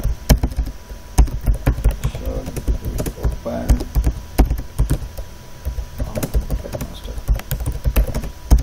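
Typing on a computer keyboard: a run of quick, irregular key clicks.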